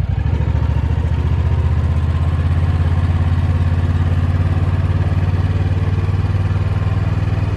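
Small engine running steadily at an even, low speed, close to the microphone.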